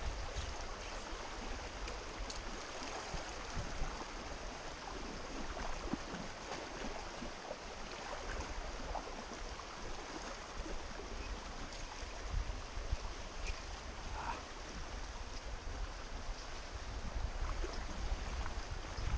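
Creek water rippling steadily over a shallow riffle, with a low rumble underneath and scattered faint small splashes and ticks.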